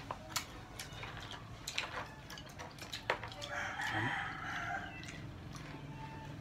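A rooster crows once, a hoarse call of about a second and a half starting about three and a half seconds in. Close, sharp clicks and crunches come from people eating crispy chicken skin and fried chicken with their hands.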